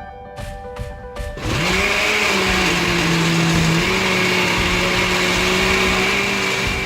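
Electric kitchen blender starting up about a second and a half in and running steadily, its motor pitch dipping for a stretch in the middle, then cutting off at the end. Background music plays beneath it.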